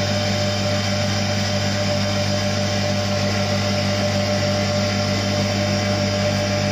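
Electric motor-driven water pump of the flow apparatus running steadily: a low hum with a thin higher whine over it, as it circulates water through the test pipe.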